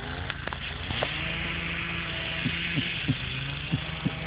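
Kubota tractor's diesel engine running steadily at low revs, with scattered sharp knocks over it.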